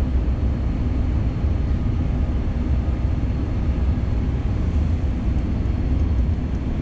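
Steady low drone of the reactive ion etcher's vacuum pumping equipment running, unchanging throughout.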